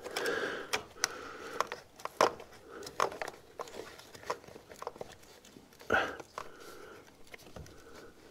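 Scattered sharp clicks and taps with some rustling: hands working plastic pipe fittings in a cramped gap, with a sleeve brushing against them, and one louder knock about six seconds in.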